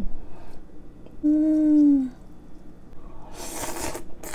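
A person eating noodle soup: a short, slightly falling hummed "mmm" with the mouth full about a second in, then a long, noisy slurp of noodles near the end.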